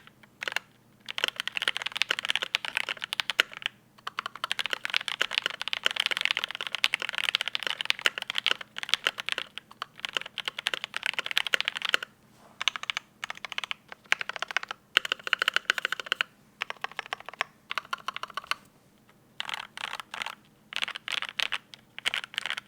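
Steady typing on a custom mechanical keyboard with lubed Mauve linear switches: quick runs of keystroke clacks broken by short pauses. The switch stems are lubed with 205g0.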